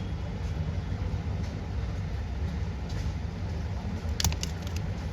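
Steady low background rumble, with a few light clicks a little past four seconds in.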